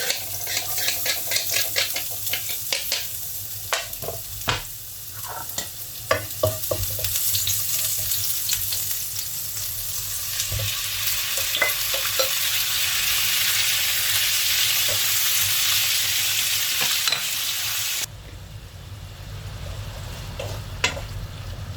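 Garlic and fresh ginger sizzling as they fry in a hot pan while being stirred, with the clicks of the utensil against the pan over the first few seconds. The sizzle grows louder, then drops abruptly near the end.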